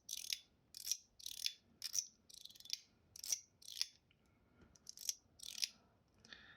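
Stainless steel mechanical fidget slider being worked back and forth, its spring-and-ball mechanism snapping with short, crisp, high clicks, about a dozen at roughly two a second.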